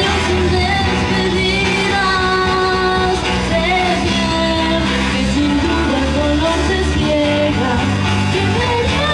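A woman singing lead into a handheld microphone with a live amplified band, an electric bass guitar playing steady low notes under the melody.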